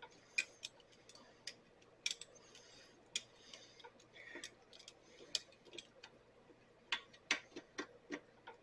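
Sparse, irregular light clicks and taps over quiet room tone.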